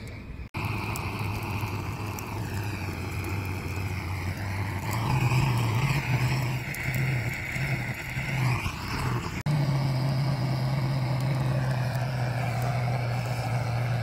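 Handheld gas torch on a butane canister blowing a steady rushing flame, first onto charcoal in a small brazier and then into a stack of kindling. The sound breaks off briefly twice, about half a second in and about nine and a half seconds in.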